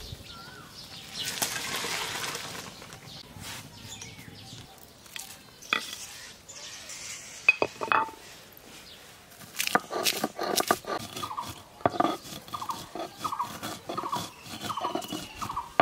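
Lightly boiled drumstick pods and their water tipped out of an iron karai, a splashing rush in the first seconds, then a few clinks. From about ten seconds in, a stone roller rubs back and forth on a sil-pata grinding stone in quick strokes, crushing dried red chillies and spice seeds.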